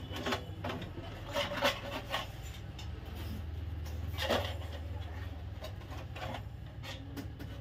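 Hands handling and pressing a thin aluminium reflector sheet into a room heater's plastic housing: irregular rubbing and scraping of sheet metal with light clicks.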